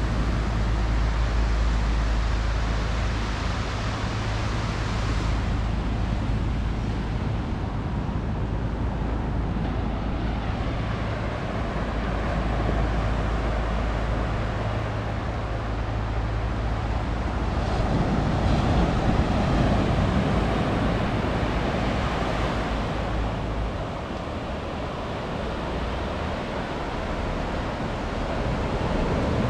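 Ocean surf breaking and washing up the beach, a steady rush that swells louder about two-thirds through, with wind rumbling on the microphone until near the end.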